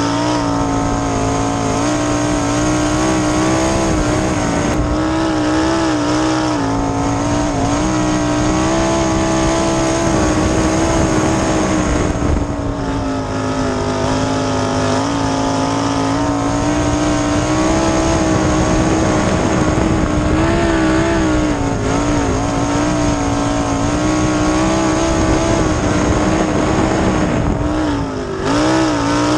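Winged sprint car's 410 cubic-inch V8 heard onboard at racing speed, running hard with a steady high drone. Its pitch sags briefly about twelve seconds in and again near the end before picking back up.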